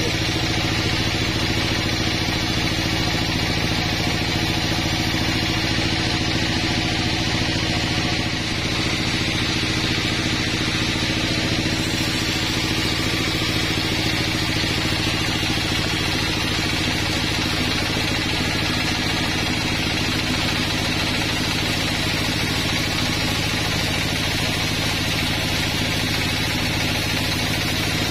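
Sawmill band saw running steadily while a wooden beam is fed through it and sawn lengthwise: an even motor hum under a constant hiss from the cut.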